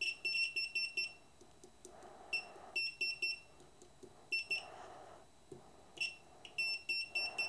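Digital multimeter beeping in continuity mode: a high beep that stutters on and off in several short runs as the probes touch the wire ends of a CRT television's deflection coil. Each run of beeps shows which wires are connected as pairs.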